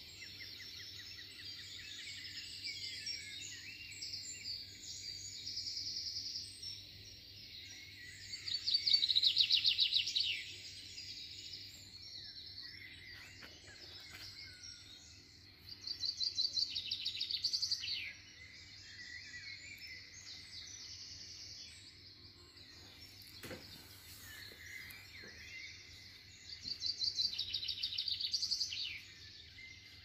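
Several songbirds chirping and singing, with a loud, fast trill that comes three times.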